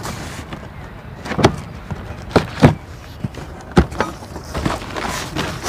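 Corrugated cardboard box being opened: a knife slitting the packing tape along the top and the flaps pulled apart, giving a series of irregular short scrapes and snaps.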